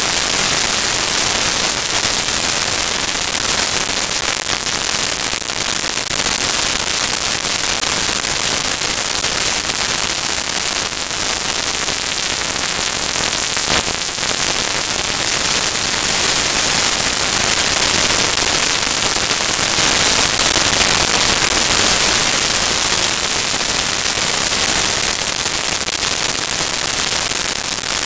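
Loud, continuous crackling static from a faulty onboard camera's sound recording; no clear engine note comes through it.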